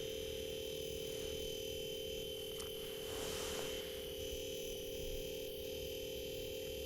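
Steady electrical hum with a thin high whine, unchanging throughout, and a faint brief hiss about three seconds in.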